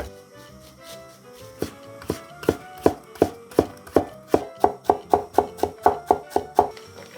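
A kitchen knife chopping on a cutting board: a run of about seventeen sharp knocks that quicken to about four a second, then stop shortly before the end. Background music plays underneath.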